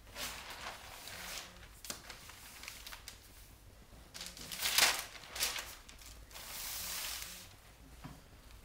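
Etching blankets and paper being folded down and smoothed by hand over the bed of a slab roller: rustling and sliding of felt and paper. There is a louder rustle about halfway through and a longer swish of a hand sliding across paper shortly after.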